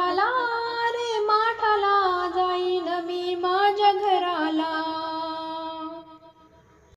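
A woman singing the drawn-out closing phrase of a Marathi gavlan, a devotional song to Krishna, with the pitch gliding and wavering. The voice fades out about six seconds in.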